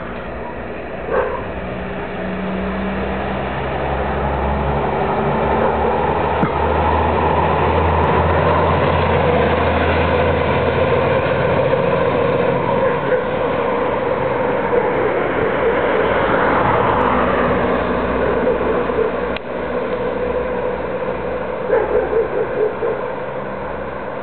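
SHD25 aerial ladder fire truck on a MAN chassis driving past on an emergency run, its diesel engine and tyres swelling to their loudest in the middle and fading as it drives away. A dog barks a few short times near the end.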